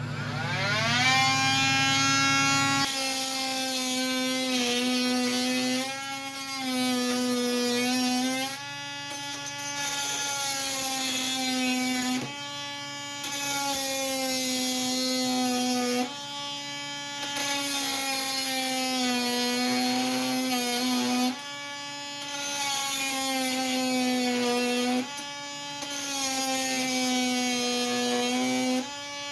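Oscillating multi-tool fitted with a carbide-tooth blade, whining as it starts up with a rising pitch and then cutting through screws and nails. Its pitch sags and recovers several times as the blade bites into the metal and breaks through.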